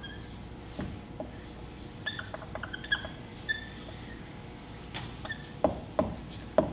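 Marker squeaking on a whiteboard as letters are drawn: a series of short, high squeaks, then a few sharper, louder strokes near the end.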